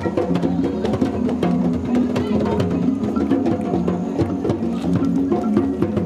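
Music with wooden percussion clicking over held low notes that change every second or so.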